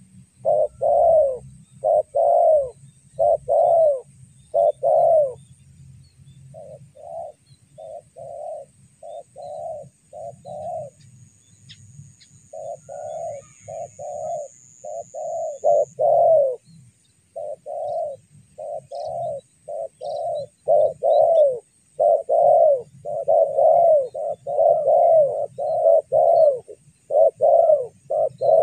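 Spotted dove cooing: short coos repeated in quick runs, several a second at times, with a short pause about eleven seconds in before the runs pick up again.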